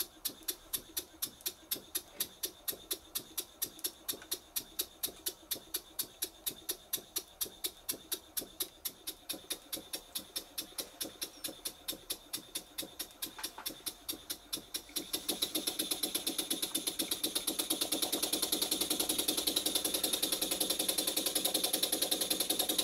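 Cotswold Heritage Ariel overhead-crankshaft vertical model steam engine running on compressed air, knocking evenly about four times a second, then running quicker and louder about two-thirds of the way through. The knock is made louder by the hollow melamine soundboard the engine stands on; the valve timing seems okay, so retarded timing is not taken for the cause.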